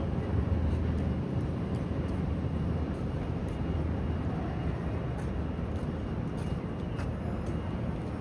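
Steady low rumble of outdoor city background noise, with a few faint ticks.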